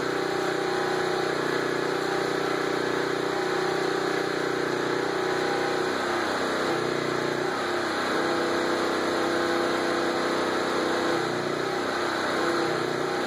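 Portable generator's engine running steadily while powering a transformer-type stick welder, its note shifting slightly a few times.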